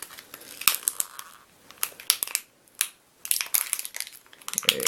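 Plastic wrap and foil of a Pokémon card booster pack crinkling and crackling as it is handled and picked at to get it open, in irregular clusters of sharp crackles with short pauses between.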